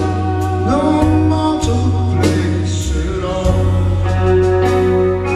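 A live rock band: a male voice singing over piano-toned keyboard, electric guitar, bass and drums, with cymbal hits every second or so.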